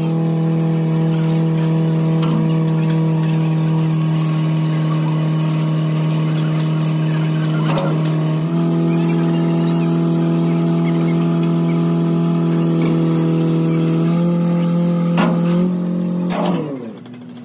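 Electric angle grinder with a flap disc running at a steady whine on a steel plate, its pitch stepping slightly about halfway through and again later, then spinning down near the end.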